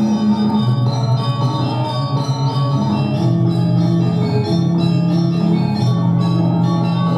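Balinese gamelan music: bronze metallophones ringing sustained, shimmering notes that change every second or so, over a fast steady pulse.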